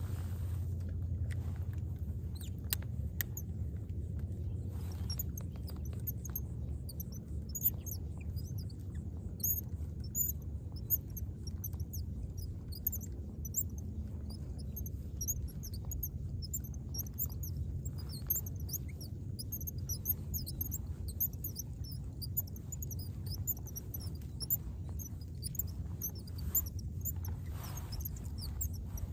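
Many short, high-pitched bird chirps scattered throughout, over a steady low rumble.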